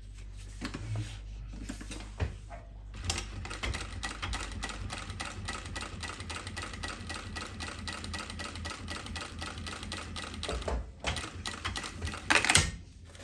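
Jack walking-foot industrial sewing machine stitching through 19 layers of canvas. Its motor hums at first; about three seconds in, a fast, even run of needle strokes starts and lasts about eight seconds, with the material fed through by the walking foot without trouble. A loud burst of noise follows near the end.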